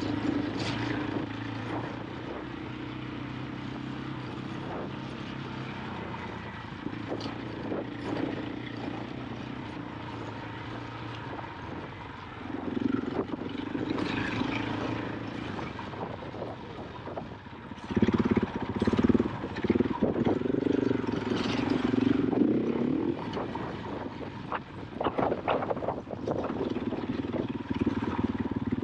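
KTM 500 EXC-F dirt bike's single-cylinder four-stroke engine running through a trail ride. It holds a steady low drone, then opens up louder twice, about halfway through and again about two-thirds of the way in. Scattered knocks come through over the engine.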